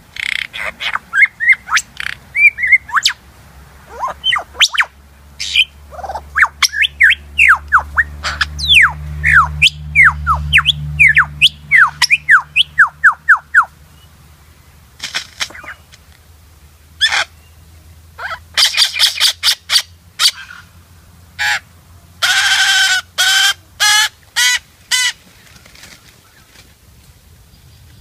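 Male superb lyrebird singing its display song: a fast run of loud, downward-sweeping whistled notes over a low hum, then about halfway through a series of sharp clicks and harsh buzzing bursts.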